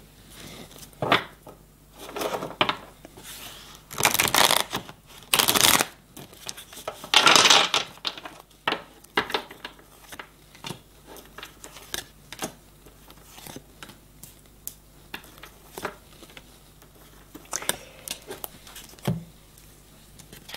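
A deck of oracle cards being shuffled by hand, with several louder rustling bursts in the first half. A run of short taps and flicks follows as the cards are handled and laid down on a wooden table.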